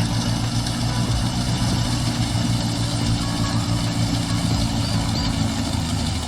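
Russian-made tractor's engine running steadily while driving a wheat thresher, with the thresher's steady mechanical noise over the engine's low note as sheaves are fed in.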